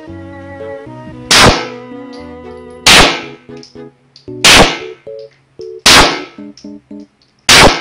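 Pistol shots, five of them about a second and a half apart, each loud and sharp with a short ringing tail, over background music.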